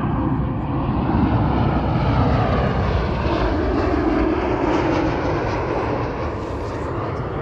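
Jet airliner's engines running loud and steady as it passes, easing off slightly near the end.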